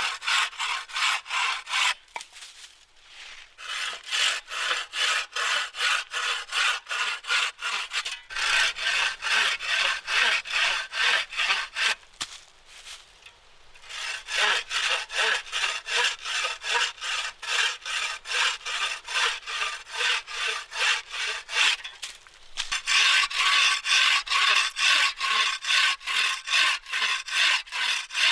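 Wooden frame saw cutting through small logs: quick, even back-and-forth strokes, about two to three a second, in several runs broken by short pauses.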